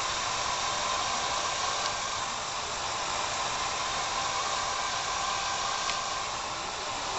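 Hair dryer running steadily: an even rush of blown air that does not change.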